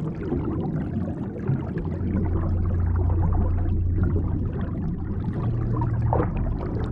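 Steady low rumble of underwater ambience, with a faint hiss of water above it and a short rising whistle about six seconds in.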